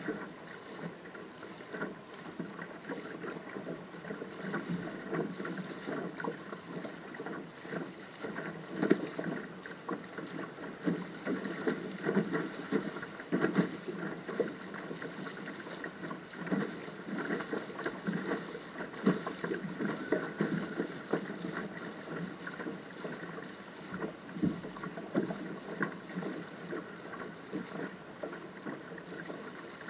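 Water rushing and slapping against the hull of a small sailing dinghy under way through chop, with irregular splashes and spray.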